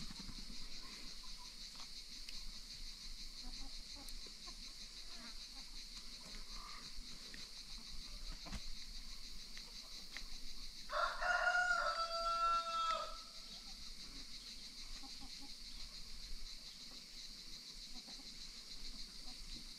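A rooster crows once, about eleven seconds in: a loud call of about two seconds that drops in pitch at the end. The falling tail of an earlier crow is heard right at the start, and a steady high-pitched hiss runs underneath.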